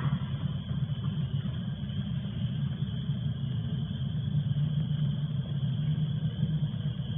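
Steady low rumble with no distinct sounds standing out.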